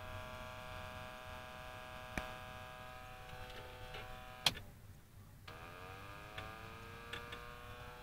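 Computer-cooler fans, run on 12 V from a van's dashboard, giving off a faint steady electric whine that is heard only with the engine off. About four and a half seconds in, a click cuts the whine off. A second later it comes back, rising in pitch as the fans spin up again.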